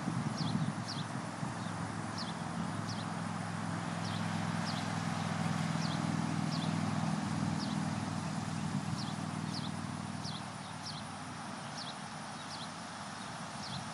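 Faint hoofbeats of a pony cantering away over grass, set in a steady outdoor hiss. A short high falling chirp repeats every half second or so, and a low steady hum rises and fades in the middle.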